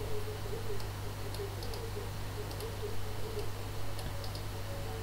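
Computer keyboard keys tapped in small clusters of light clicks, over a steady low hum.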